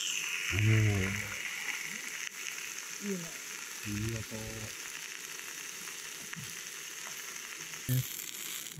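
Steak searing in a hot cast iron skillet: a steady sizzle that starts sharply as the meat goes into the pan. A few short low voice sounds come over it.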